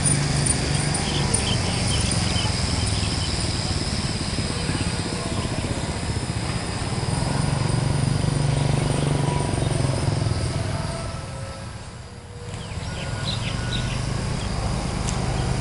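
Outdoor ambience: a low, uneven rumble of wind on the microphone that drops away briefly about twelve seconds in, with small birds chirping and a steady high insect whine.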